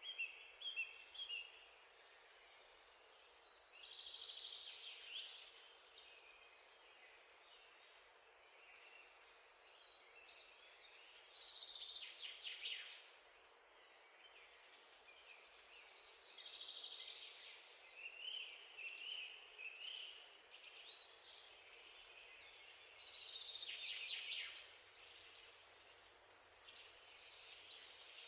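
Faint birds chirping, with bursts of high, quick trills and calls every few seconds over a low steady hiss.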